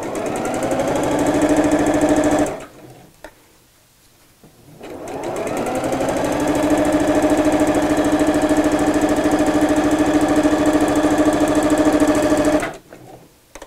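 Electric sewing machine stitching through cotton fabric and zip tape: it speeds up and runs briefly, stops for a couple of seconds, then starts again, picks up speed and runs steadily for about seven seconds before stopping near the end.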